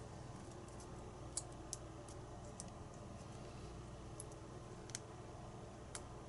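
Scattered faint metallic clicks, about seven in all at uneven intervals, from a shim being worked into a pin-tumbler lock cylinder to free the core. A low steady hum lies underneath.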